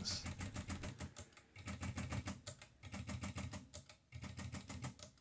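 1943 Erika 5 Tab portable typewriter worked at its keyboard while tab stops are set. A fast string of light mechanical clicks comes from the keys and the carriage escapement as the carriage steps along, in four runs with short breaks between.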